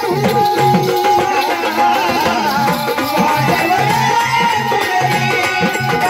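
Marathi gavlan folk music: a drum keeps a steady, regular beat under a sustained, wavering melody line.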